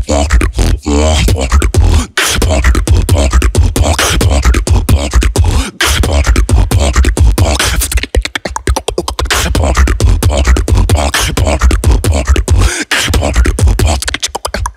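Solo beatboxing into a handheld microphone: a deep, sustained vocal bass under a dense, fast pattern of mouth-made kick, snare and hi-hat clicks, with brief breaks about two seconds in, near six seconds and near thirteen seconds.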